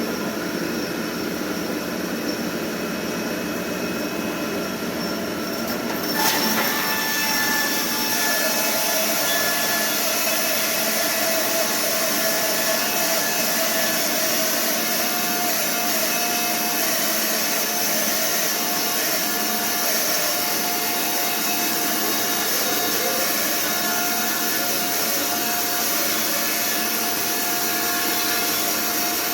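MTK-80 horizontal sawmill running steadily; about six seconds in the sound jumps louder and hissier as the saw starts cutting through the log, then holds steady while sawing.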